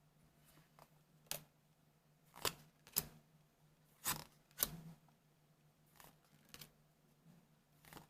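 Trading cards being handled and flipped through: about seven short, sharp card snaps and taps, over a faint steady low hum.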